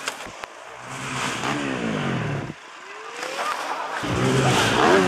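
Quad bike (ATV) engine revving, its pitch rising and falling in turn. The sound breaks off suddenly about two and a half seconds in, then comes back, rising, and is loudest in the last second.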